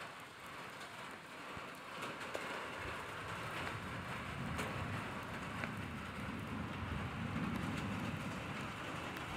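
Steady rain falling, with a low rumble of thunder swelling from about two seconds in and strongest near the end.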